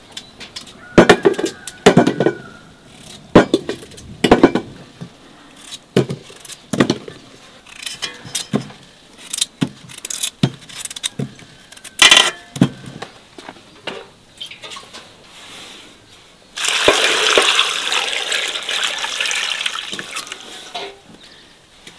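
Cut potato pieces dropped into an aluminium pot, landing with a series of separate knocks. About two-thirds of the way through, water is poured from a metal jug into the pot for about four seconds, filling it over the potatoes.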